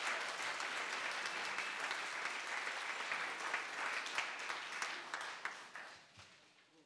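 Crowd applauding, many hands clapping, fading away over the last two seconds.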